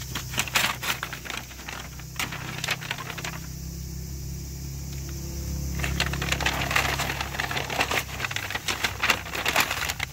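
Masking paper crackling and rustling as it is peeled off a car's wheel arch and bunched up by hand, in two spells of dense crackling with a quieter lull from about two to six seconds in.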